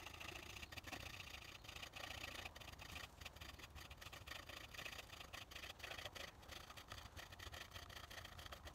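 Faint, fast back-and-forth scraping on a small hatchet head, worked by hand in quick steady strokes.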